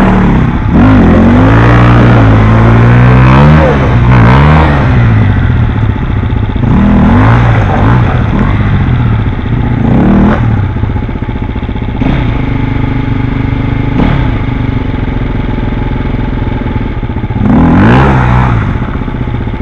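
Off-road trail motorcycle engines revving in repeated bursts, pitch climbing and falling, as the bikes fight for grip in deep mud ruts. The surges are loudest in the first few seconds and again near the end.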